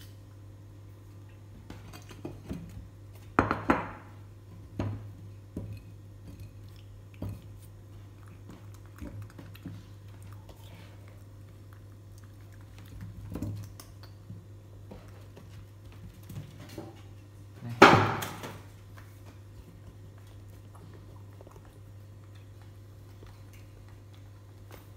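A baby monkey rummaging and clambering among household things: scattered knocks and clatters of handled objects, two louder ones a few seconds in and about two-thirds through, over a steady low hum.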